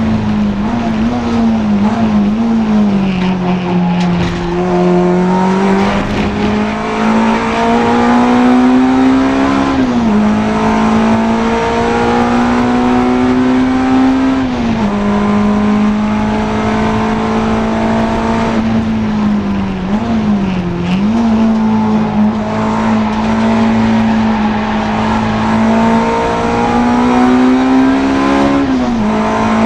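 Honda Integra DC2 race car's four-cylinder engine running hard at high revs. Its note climbs slowly in each gear and drops sharply at a few upshifts, with two brief dips where it comes off the throttle and shifts down before pulling again.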